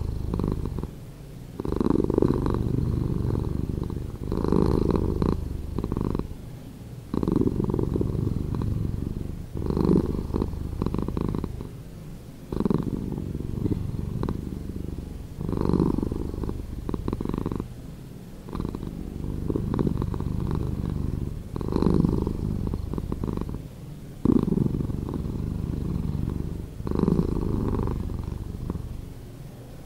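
A domestic cat purring, played back slowed down, so that each breath in and out swells and fades about every two and a half to three seconds.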